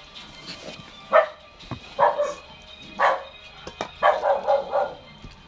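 A dog barking about once a second, with a quicker run of barks near the end.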